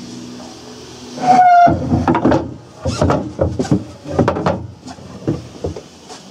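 A short, high squeak about a second in, then a run of irregular knocks and clunks for about three seconds, like fittings being handled in a small cabin.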